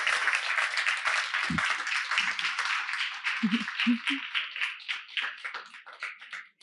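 Small audience applauding, the clapping thinning to a few scattered claps and dying away near the end.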